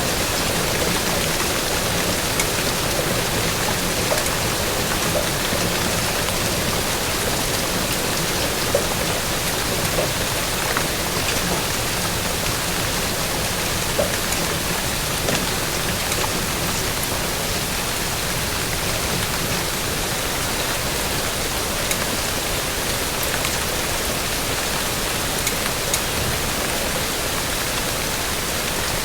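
Steady rain falling: an even hiss with scattered single drops ticking here and there.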